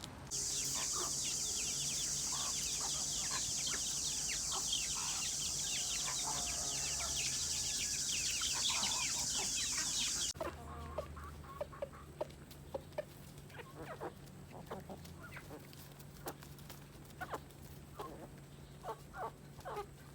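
Chickens clucking, with a loud steady high-pitched hiss over them that cuts off suddenly about halfway through; quieter clucks and short clicks follow.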